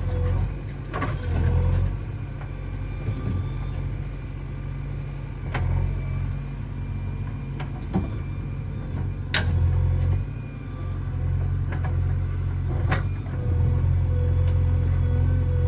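JCB 3DX backhoe loader's diesel engine running, a steady low drone that eases off in places and comes back strong near the end, with a few sharp metallic knocks, the loudest about nine seconds in.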